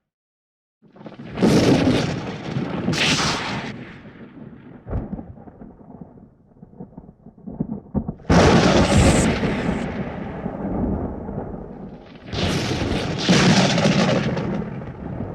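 Sci-fi sound effects of heavy blasts: three sudden, explosion-like hits about a second, eight seconds and twelve seconds in, each fading away over several seconds.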